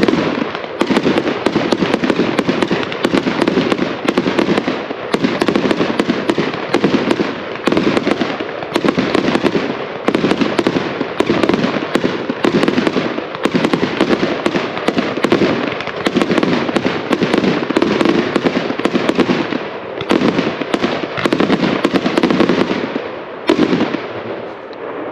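A Spirit of 76 25-shot hammer cake firing: a rapid, nearly continuous barrage of loud reports and crackle that ends with a last bang near the end.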